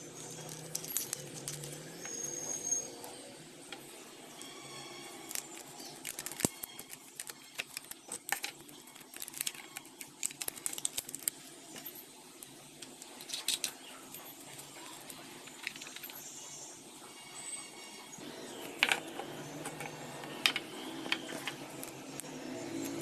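Small plastic parts and bottle caps being handled and fitted together on a wooden table: scattered light clicks, taps and rustles.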